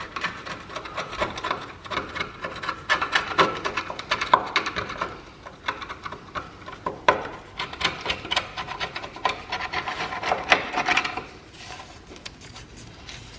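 Old sealant being scraped and picked off a car's inner wing panel by hand: an irregular run of scratches and small clicks. It eases off briefly about halfway and goes quieter near the end.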